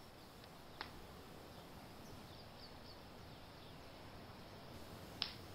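Faint outdoor ambience: a steady low hiss with a few distant bird chirps, and two short sharp ticks, one about a second in and one near the end.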